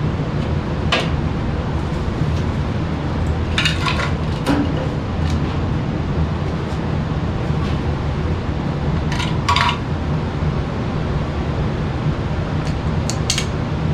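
Metal tools and sheet-metal furnace parts clinking and tapping in a handful of separate sharp strikes, over a steady low hum.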